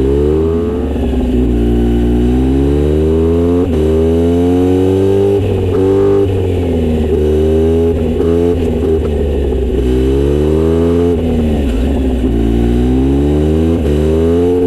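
Kawasaki Z900RS inline-four engine through a Misty Kintaro short-pipe exhaust with a 70 mm silencer, under way: the revs climb and fall again and again, with sharp drops between climbs like gear changes and slower falls as it eases off.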